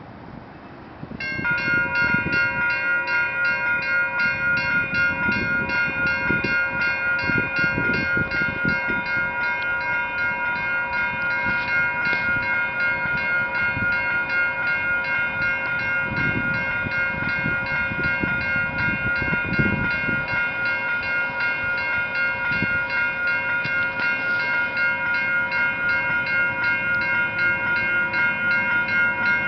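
Level crossing warning bell starts about a second in and rings on with rapid, evenly repeated strokes, over a low, uneven rumble.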